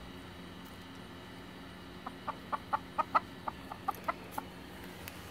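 Chicken clucking in a quick, uneven run of about a dozen short clucks, starting about two seconds in and lasting some two seconds: alert clucking from a flock on edge.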